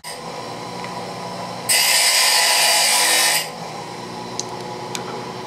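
Hand-held angle grinder running at speed, with a loud spell of grinding on steel in the middle lasting about a second and a half. The piece is being ground down to an angle.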